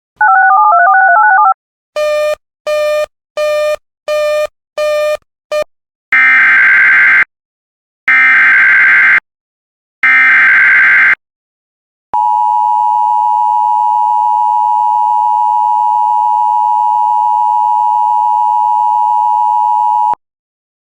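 Emergency Alert System alert tones. First a brief warbling tone and six short beeps, each shorter than the last. Then the SAME digital header as three harsh one-second data bursts, followed by the steady two-tone EAS attention signal held for about eight seconds, which cuts off abruptly.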